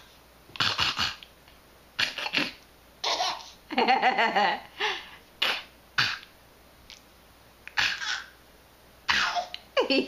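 Pet parrot making mimicked coughs and laughs: short cough-like bursts about every second, with a longer laugh about four seconds in and another at the end.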